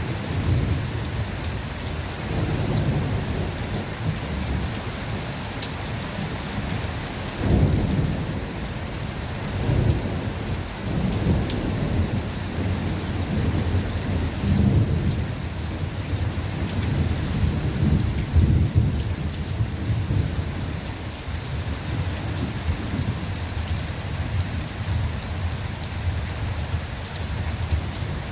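Steady rain falling in a forest, with low rolling thunder under it that swells several times.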